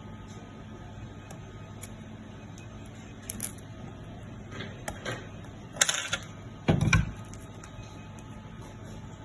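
Small clicks and knocks of parts and tools being handled during disassembly of a fiber fusion splicer, the loudest a brief clatter about six seconds in and a heavier knock just after, over a steady low hum.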